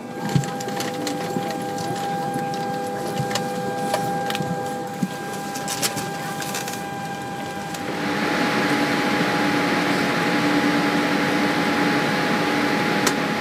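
Boeing 787-8 cabin noise: a steady air-conditioning hum with a few steady tones and scattered clicks and knocks while passengers board. About eight seconds in it changes to a louder, fuller hiss of engine and air noise with a low steady hum as the jet taxis.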